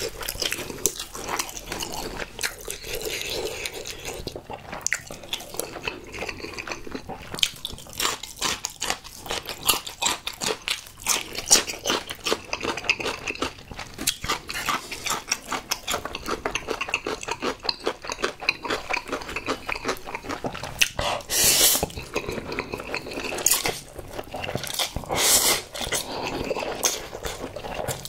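Close-miked mouth sounds of a person eating: moist chewing of whole-block Spam with a steady stream of small wet clicks. Two louder noisy bursts come about three-quarters of the way through.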